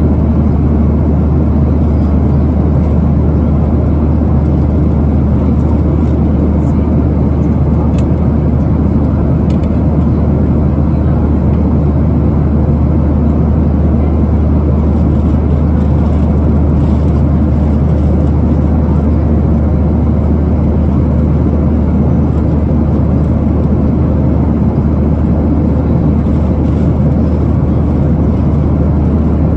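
Steady cabin noise of a Boeing 737-700 in cruise: a constant low roar of airflow and its CFM56-7B engines, unchanging throughout.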